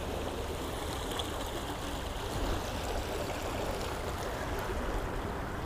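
Stream water running steadily below the footbridge, an even rushing with no break.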